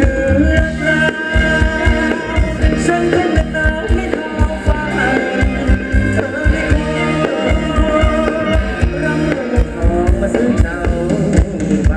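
Live band playing upbeat Thai ramwong dance music, loud, with a steady drum beat under a sung melody.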